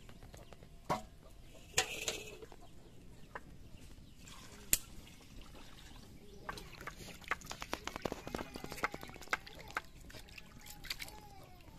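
Water poured from a plastic mug into a steel bowl of raw chicken pieces, then hands sloshing and rubbing the pieces in the water with quick splashes, after a few sharp clinks of the steel bowl and plate. Hens cluck in the background.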